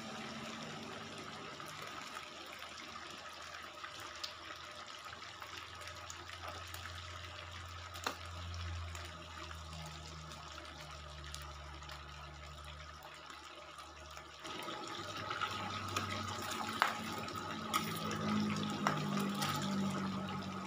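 Serundeng-spiced chicken pieces deep-frying in hot oil over a high flame, a steady sizzle in an aluminium wok. A metal spatula clinks against the wok a few times, more often in the last several seconds, as the pieces are turned.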